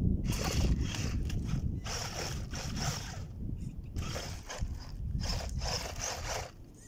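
Wltoys 12428 RC buggy on a 2S battery, its brushed electric motor and drivetrain running in short, irregular throttle bursts as the tyres scrabble over loose dirt and stones. A steady low wind rumble lies on the microphone throughout.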